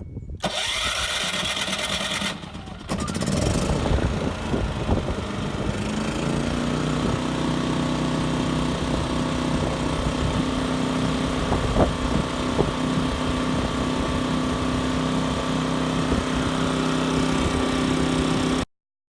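Champion 3400 dual fuel inverter generator's single-cylinder engine running, plausibly on propane. A couple of seconds of louder noise come first, then the engine runs and settles into a steady hum after about six seconds. The sound cuts off abruptly near the end.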